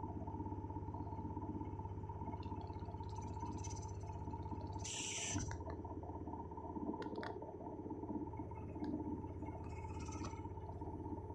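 IFB washing machine in its final spin: the drum and motor run with a steady hum and a constant whine. About halfway through there is a short hiss and the low hum shifts slightly.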